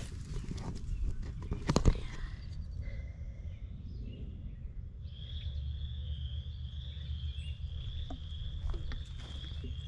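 Chorus frogs calling as a steady massed chorus, a continuous high trilling that starts about halfway through, over a low rumble. There is a sharp knock about two seconds in.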